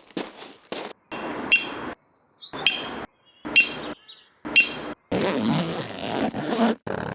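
Metal tent pegs being hammered in: four sharp strikes about a second apart, each with a short metallic ring. After them comes a stretch of rustling and scraping.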